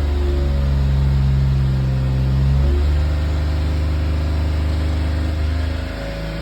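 Suzuki Jimny JB64's 660 cc turbo three-cylinder running steadily at around 3000 rpm, heard from inside the cabin with the windows down, with the abnormal engine noise the owner hears at that speed. A humming tone rises over the drone about a quarter of a second in and drops away at about two and a half seconds.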